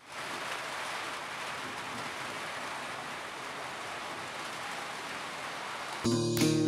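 Steady, even rain falling. About six seconds in, strummed guitar music comes in suddenly and louder.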